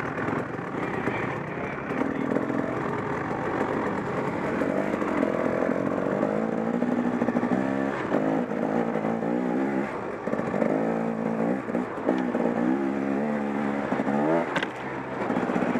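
KTM 300 XC-W's single-cylinder two-stroke engine revving up and down as the bike is ridden over rough woodland trail, its pitch rising again and again with each burst of throttle, more often in the second half.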